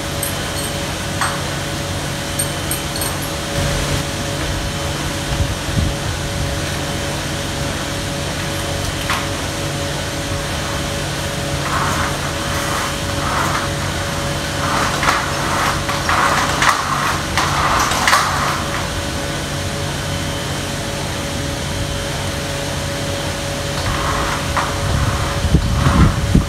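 Steady machine hum, with clinks and rattles of a steel chain and padlock being handled against a metal gate, in clusters in the middle and again near the end.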